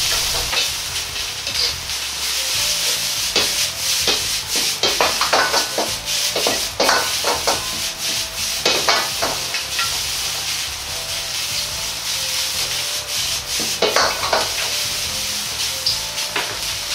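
Strips of green pepper, bamboo shoot and ham stir-frying in a wok over high heat: a steady sizzle under a metal ladle scraping and knocking against the wok. The ladle strokes come thickest from about three to nine seconds in and again near the end.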